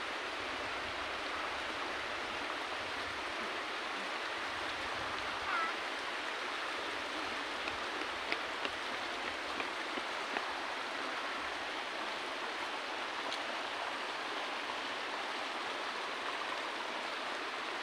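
Steady rushing of flowing water from a stream, with a few faint ticks about halfway through.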